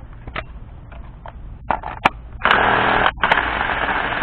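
Ryobi P235 brushed cordless impact driver, on a 3Ah HP battery, triggered with no load. First a few light clicks, then a short burst about two and a half seconds in and a longer run starting a little later.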